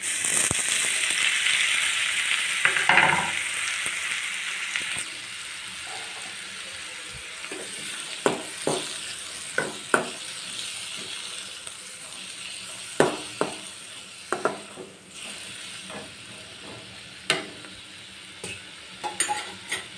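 Chopped tomatoes hitting a hot kadai of onion, ginger and garlic frying in butter: a loud burst of sizzling that dies down over the first few seconds to a steady sizzle. The stirring utensil knocks and scrapes against the pan about eight times in the second half.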